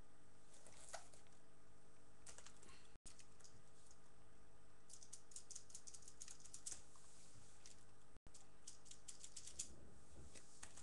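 Bunches of quick, light clicks and taps over a steady low hum and hiss. The sound cuts out briefly twice.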